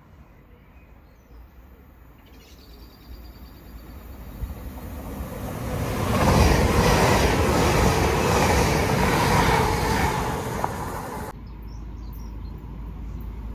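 TransPennine Express Class 802 passenger train approaching and passing at speed, its running and wheel-on-rail noise swelling over several seconds and loudest as it goes by. About eleven seconds in the sound cuts off abruptly to a quieter low rumble.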